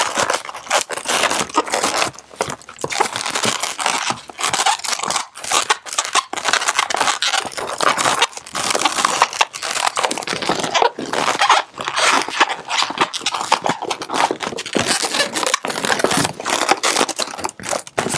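Yellow 260 latex modelling balloon squeaking and rubbing as it is twisted and worked into small bubbles, an unbroken run of irregular squeaks and rubs with brief pauses between twists.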